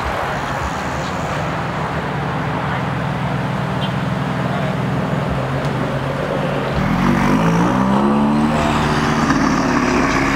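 Nissan 370Z 3.7-litre V6 exhausts as the cars drive past at low speed. A steady low exhaust drone gives way, about seven seconds in, to a louder exhaust note that rises and dips in pitch with the throttle.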